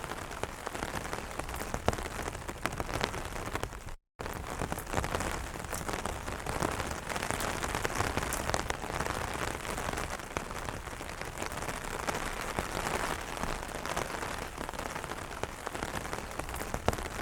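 Rain falling on an umbrella: a dense, steady patter with many sharper single drop hits. It cuts out completely for a split second about four seconds in.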